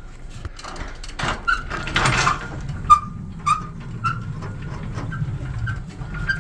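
Wheeled equipment lift being rolled across a floor: a low rumble with a short squeak about twice a second, and a few knocks as it starts moving.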